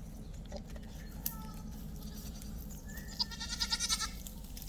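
A goat making quiet calls: a faint short call about a second in, then a rapid stuttering, chattering call about three seconds in that sounds like a monkey.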